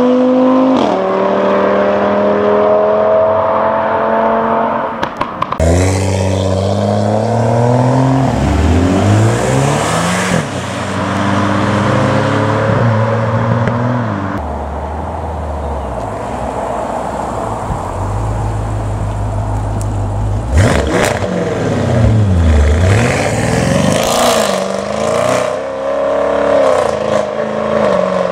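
Car engines revving and accelerating, loud, with the pitch climbing and dropping again and again. Sharp cracks cut in about five seconds in and several more times in the second half.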